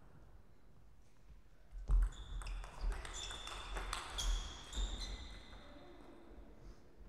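Table tennis rally: a quick run of sharp knocks as the celluloid-type ball is struck by rackets and bounces on the table, starting about two seconds in and stopping around five seconds, with high squeaks of shoes on the court floor during the play.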